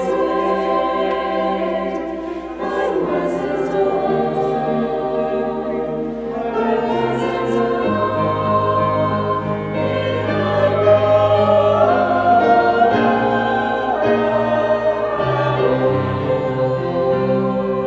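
Mixed chamber choir singing sustained chords with grand piano accompaniment; lower voices join in about seven seconds in.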